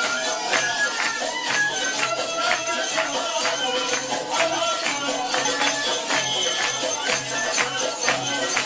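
Upbeat Turkish oriental belly-dance music: a steady percussion beat under a wavering melody line.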